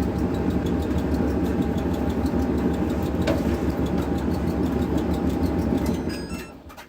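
Clothes dryer running with a steady mechanical hum, a single click about halfway through, and stopping near the end. It keeps running without cutting out, now that its faulty program selector switch has been repaired.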